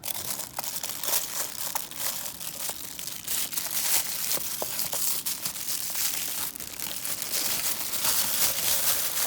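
Plastic packaging crinkling and rustling continuously as a wrist watch is taken out of its wrapping, with a dense, irregular crackle and many small clicks.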